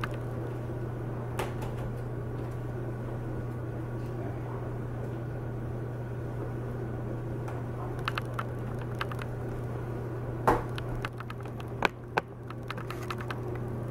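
Scattered light clicks and knocks of plastic laptop parts being handled as a replacement LCD screen is fitted into the lid, with one sharper knock about ten seconds in and a quick pair of clicks near the end, over a steady low hum.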